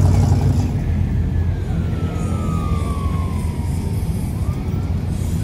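Low, steady rumble of vehicle engines running. A single high tone slides slowly downward in pitch over about two and a half seconds, starting about a second in.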